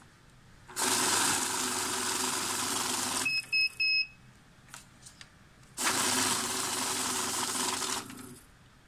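Secure LD-26M bill counter running, its motor whirring as banknotes riffle through for about two and a half seconds, then stopping with three quick beeps. A couple of seconds later it runs again for about two more seconds.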